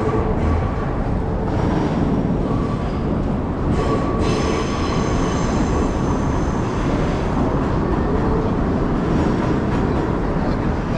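Subway train running: a steady, loud rumble, with a faint high whine joining about four seconds in.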